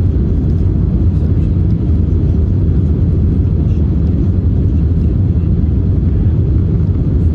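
Steady low rumble inside an Airbus A320's cabin: engine and airflow noise.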